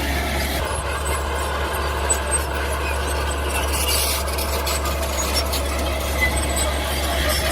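Mini bulldozer working, its engine running steadily, with intermittent high-pitched metallic squeals over it.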